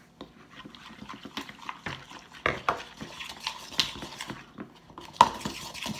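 Spoons stirring and scraping sticky glue slime in plastic bowls, with irregular clicks and taps against the bowl sides; one sharper knock about five seconds in.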